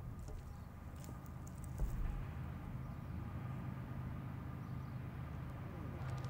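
A vehicle engine running as a steady low hum, with a few faint clicks and a dull thump about two seconds in.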